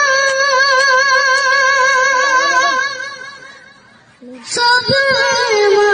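A boy singing solo, holding a long high note with a steady vibrato that fades away about three seconds in; after a brief pause he takes up a new, lower held note.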